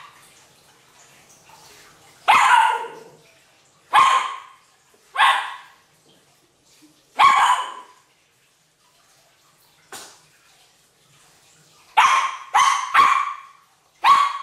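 West Highland White Terrier barking at a spiny chestnut burr: single barks a second or two apart, then a quick run of three barks near the end.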